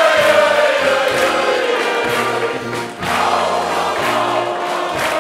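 Music with choir-like voices over a bass line of held notes, dipping briefly about three seconds in.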